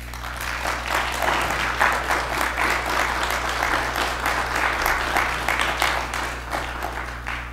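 Audience applauding after a lecture: many hands clapping, building over the first second, holding steady, then tapering off near the end.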